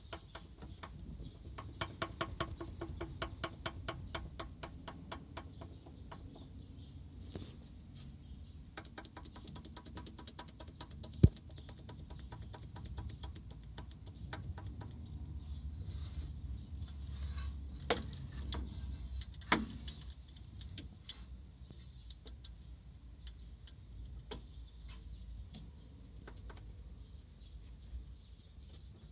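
Żuk van engine running with a rapid, regular knock: piston slap from worn, loose pistons. The knocking is strongest in the first several seconds, and a single sharp bang comes about eleven seconds in.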